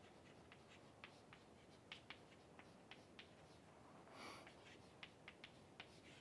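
Faint chalk on a blackboard: irregular light taps and short scratches as words are written by hand. A soft, brief hiss about four seconds in.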